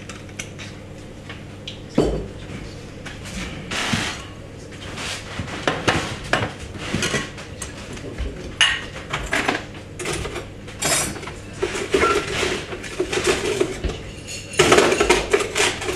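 Bar tools clinking and knocking: a steel jigger, a metal cocktail shaker tin and glass bottles handled and set down on the bar. The clinks are scattered, with a denser clatter near the end.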